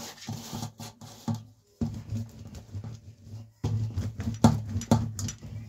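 Rolling pin pressed and rolled over a sheet of hot jaggery and nut chikki mixture, making irregular knocks and low rumbling strokes with short pauses between them.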